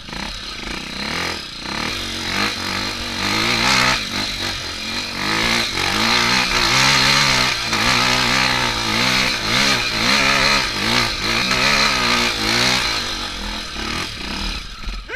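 Four-stroke single-cylinder trail motorcycle engine climbing a steep dirt hill, its revs rising and falling again and again as the throttle is worked, then dropping near the end.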